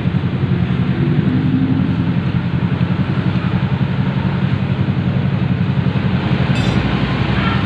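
A small engine running steadily at idle with a fast, even pulse, and one brief sharp metallic click about six and a half seconds in.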